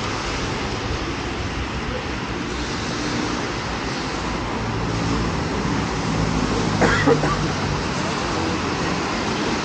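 Street traffic on a wet road: a steady hiss of car tyres on wet asphalt with passing engines, and one brief sharp sound about seven seconds in.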